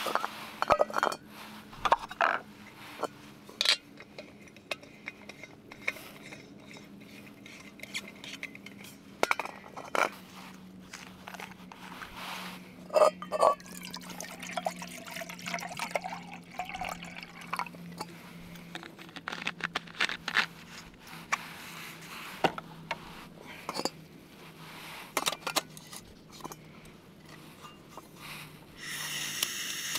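Irregular clinks and knocks of dishes or pots, with liquid pouring, over a faint low hum that slowly sinks in pitch. A steady hiss starts shortly before the end.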